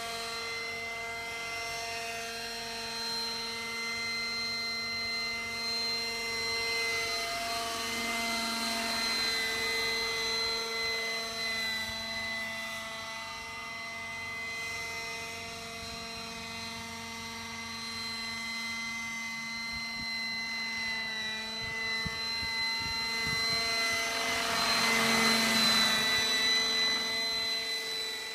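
Radio-controlled scale Gazelle model helicopter with a fenestron tail rotor in flight: a steady high whine from its rotors and drive. It grows louder, with a rush of rotor noise, as it passes closer near the end.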